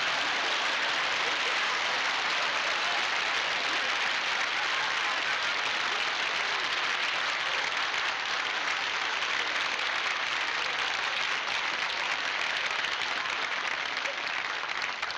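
A studio audience applauding, long and steady, easing off slightly near the end.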